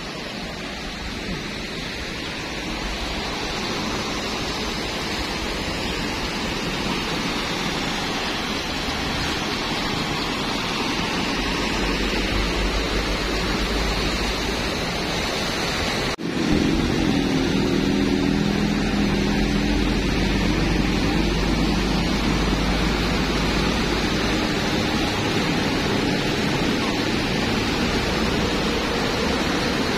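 Muddy floodwater rushing across a road, a steady hiss. After a cut about halfway, a heavy truck's diesel engine runs with a low rumble as it wades through the floodwater.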